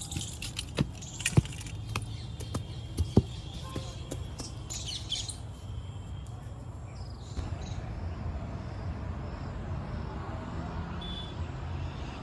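Diesel engine of earthmoving machinery running with a steady low rumble, with several sharp knocks in the first few seconds. Birds chirp faintly.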